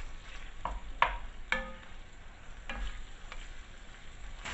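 A wooden spatula stirring chicken and chorizo pieces around an enamelled cast iron casserole, knocking against the pan about five times, over a faint sizzle of the meat frying in oil.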